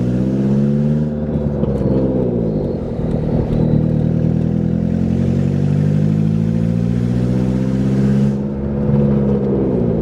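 1993 Saturn SW2's 1.9-litre four-cylinder engine running with no exhaust manifold, exhausting straight from the open ports of the cylinder head. It is revved up and down: the pitch falls about two seconds in, climbs back and holds, then drops again near the end before rising once more.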